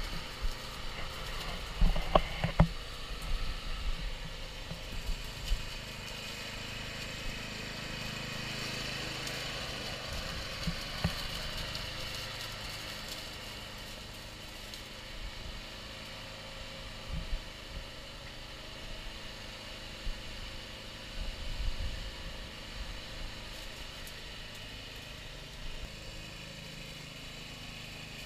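Radio-controlled lawn mower's engine running steadily as the mower drives away across the grass, growing a little fainter about halfway through. A few knocks about two seconds in.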